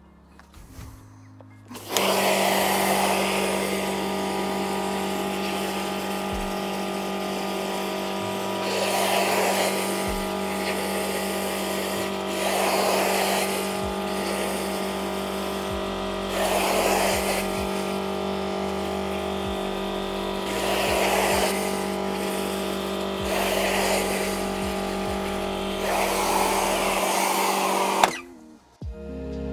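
AVA P80 Master electric pressure washer running, its motor and pump humming steadily under the hiss of the water jet striking stone patio slabs. It starts suddenly about two seconds in, the spray noise swells about every four seconds, and it cuts off near the end.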